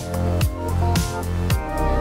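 Background music with a steady beat, about two beats a second, over held bass notes.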